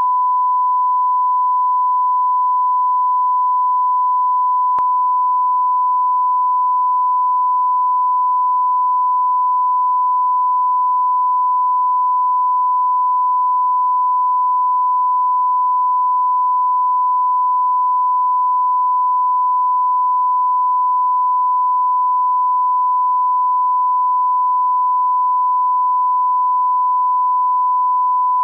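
Steady 1 kHz line-up test tone, a single unbroken pure beep, sounding with colour bars at the head of a broadcast programme.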